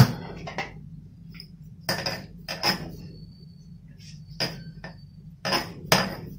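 Sharp clinks and knocks, about seven, each with a brief high ring, the loudest right at the start, while semolina dough is rolled into logs by hand on a stone counter beside a brass bowl.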